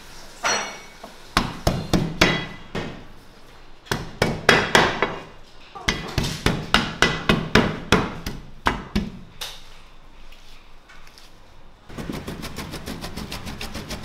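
Large two-handled curved knife chopping garlic and parsley on a cutting board: quick runs of sharp knocks as the blade strikes the board, with short pauses between runs, turning into a faster, lighter, even chopping near the end.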